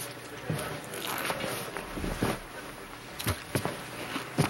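Crunching of snack chips being eaten, several separate crisp crunches about a second apart, with a closer pair near the end, over soft rustling and shuffling.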